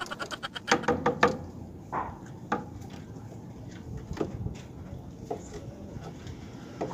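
Light knocks and taps on wood in a small wooden loft. A quick run of clicks comes in the first second or so, then scattered single knocks.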